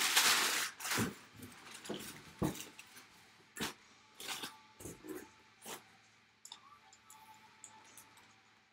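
Brown packing paper and cardboard being handled inside a large cardboard box: a loud paper rustle at the start, then scattered cardboard taps and rustles that grow fainter.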